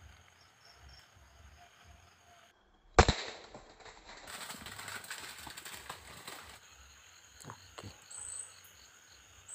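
A single shot from a Sharp Innova multi-pump air rifle about three seconds in, the loudest sound, followed by a few seconds of rustling and scuffling noise. Crickets chirp steadily in the background.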